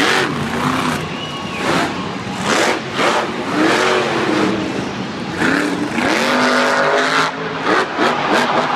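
Monster truck's supercharged V8 revving hard in repeated rising and falling bursts, with noisy clatter between them.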